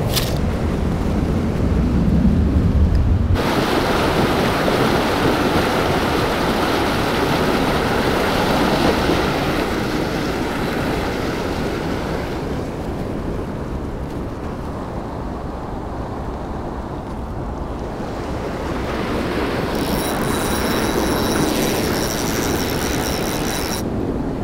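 Steady rushing noise of wind buffeting the microphone over fast, churning river water. It changes abruptly about three seconds in.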